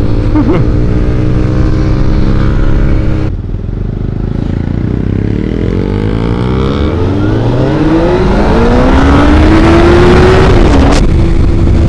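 2004 Suzuki GSX-R600's inline-four engine under way, with wind rushing over the helmet microphone. It runs steadily, the throttle shuts off about three seconds in, then from about four seconds the revs climb steadily for some six seconds before a short dip in pitch near the end.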